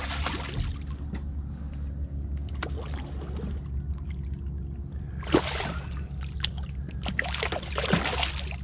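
A hooked redfish thrashing at the surface beside the boat: bursts of splashing near the start, about five seconds in, and again toward the end, over a steady low hum.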